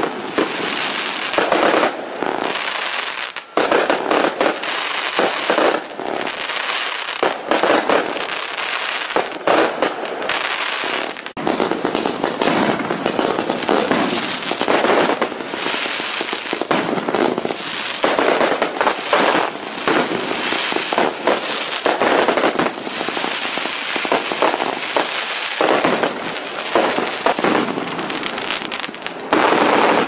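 Fireworks: a continuous barrage of overlapping bangs and pops, with no pause.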